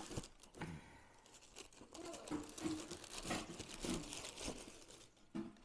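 Tissue paper crinkling and rustling in irregular bursts as it is folded back inside a cardboard sneaker box, with a few light knocks from handling the box.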